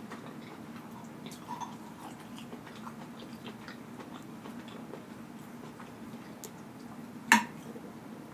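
Quiet close-miked eating sounds: chewing and small mouth noises with light clicks of a metal fork working in a bowl of cheesy meatballs, and one sharper clink of the fork on the bowl about seven seconds in.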